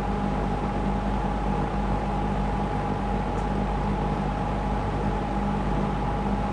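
Lakewood P25 metal-blade box fan running steadily in a window on intake: a constant rush of air with a steady hum and a held mid-pitched tone from the motor and blades.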